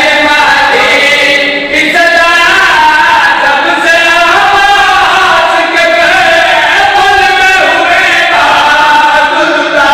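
Several men chanting a noha, a Shia lament, in unison into a microphone, in long held, wavering phrases.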